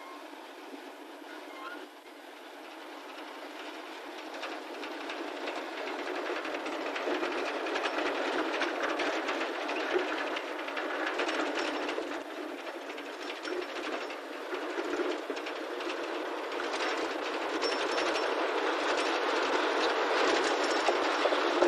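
Narrow-gauge diesel locomotive hauling a train of sugar-cane wagons, growing louder as it approaches, with the wagons rattling and clanking on the track.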